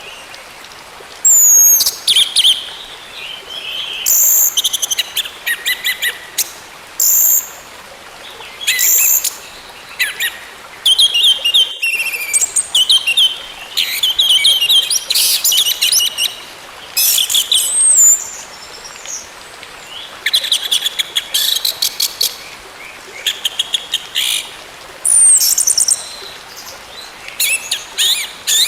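Orange-headed thrush singing: a long string of loud, varied phrases of whistled notes, rapid trills and sweeping high notes, with short pauses between phrases.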